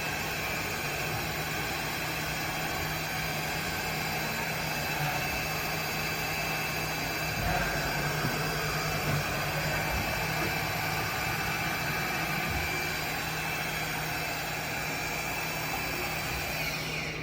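Haas VF-0E CNC vertical machining center running its spindle at 3500 RPM through a helical interpolation move: a steady whine and hiss with a low hum underneath. Near the end the pitch falls and the high whine fades as the spindle winds down.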